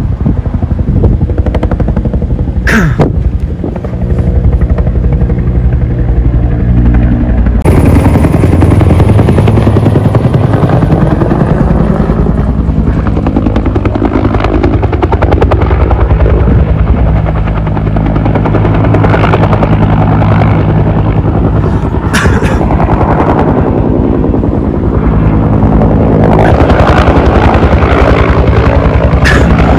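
Two-bladed firefighting helicopter flying overhead with its water bucket slung beneath: a steady, loud rotor chop over engine noise. About eight seconds in the sound changes abruptly and grows fuller.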